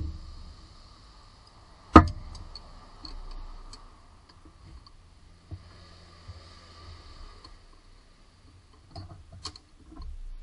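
Sharp clicks and light metallic ticks of hand tools against the engine's accessory drive belt and pulleys. A loud single click comes about two seconds in, and a cluster of smaller ticks near the end.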